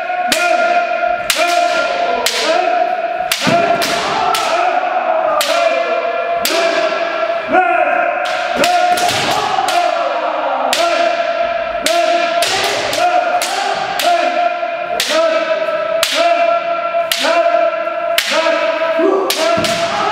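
Kendo sparring: bamboo shinai strikes cracking sharply at an irregular, rapid pace, each ringing on in an echoing gym, over near-continuous long kiai shouts from several fencers.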